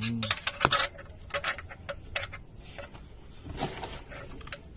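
Irregular metallic clicks and clinks of a wrench being worked on an engine's oil drain plug, loosening it for an oil change.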